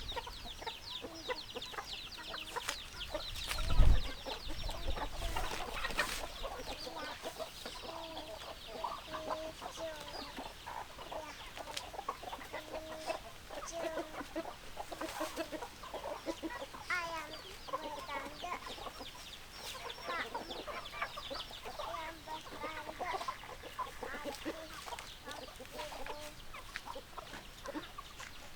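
Hens clucking, many short repeated clucks throughout, with dense high chirping over the first few seconds. A loud low thump about four seconds in.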